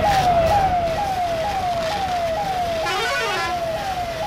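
Emergency-vehicle siren sounding in a fast repeating cycle, each note jumping up and gliding back down about twice a second, over steady low rumble and noise.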